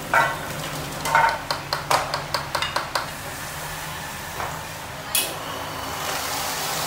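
Metal tongs and a ladle clinking and scraping against stainless-steel pots and bowls as stir-fried snails are scooped onto a plate. There is a quick run of clinks in the first three seconds, then two single knocks, the last one ringing.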